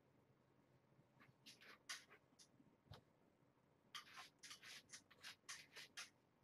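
Faint scratchy rustling of kittens' paws and unretracted claws scraping on a fabric blanket as they wrestle, in two bouts of quick strokes, the second, about four seconds in, longer.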